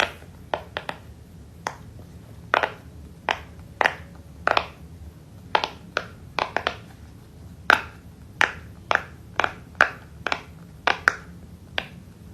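Fidget toy being popped by hand: about twenty sharp pops at an uneven pace.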